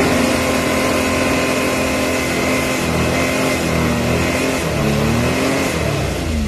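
2020 Can-Am Maverick X3 Turbo RR's three-cylinder turbocharged engine and CVT clutch held at high revs in neutral, a steady loud drone with only a slight clutch rattle. Near the end the revs waver and fall back.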